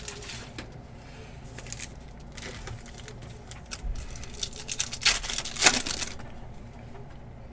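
Hands handling a foil trading-card pack and sliding football cards over one another: scattered short crinkling and scraping bursts, the loudest a little after five seconds in.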